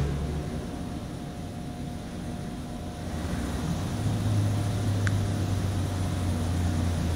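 GE B23-7 diesel-electric locomotive and its 12-cylinder diesel engine running as it approaches slowly, a low steady rumble that swells and grows louder about four seconds in.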